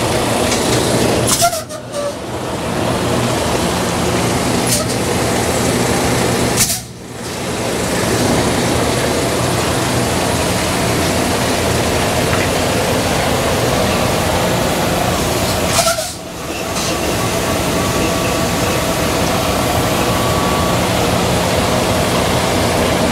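Semi-truck diesel engines running at idle close by as a tractor-trailer slowly backs in alongside, a steady loud rumble. The sound drops away briefly three times, each drop after a sharp click.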